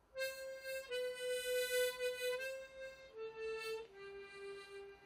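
Harmonica playing a slow melody of long held notes that step downward in pitch.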